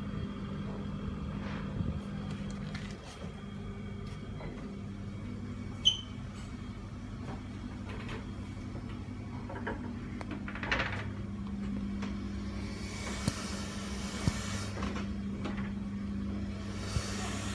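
Steady low hum of a Mitsubishi ceiling exhaust fan running. Over it come rustling and scattered sharp clicks from handling a paper towel and the phone, with two longer bouts of rustling near the end.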